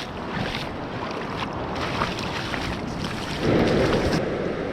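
Wind buffeting the microphone over the wash of surf, with a louder rush of noise about three and a half seconds in.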